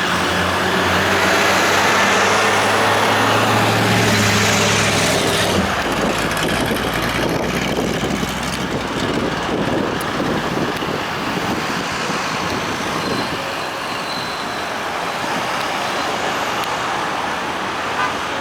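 Street traffic: a heavy vehicle's engine drones steadily for the first five seconds or so and cuts off, leaving the steady noise of passing road traffic.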